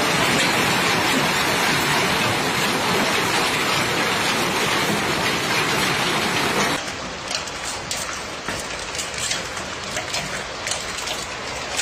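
Heavy hail falling: a dense, steady hiss of hailstones. About seven seconds in it changes abruptly to a quieter, sparser clatter of separate hailstones striking the pavement.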